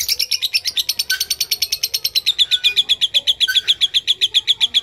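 Lovebird singing a long, unbroken chattering trill ('ngekek panjang') of rapid high notes, about ten a second, growing louder about two seconds in.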